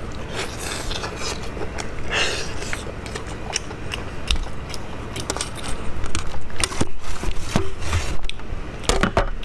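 Eating sounds: biting, chewing and tearing a piece of braised meat, with many small wet, sticky clicks. In the second half a large kitchen knife cuts the meat against a metal tray, adding louder knocks and scrapes.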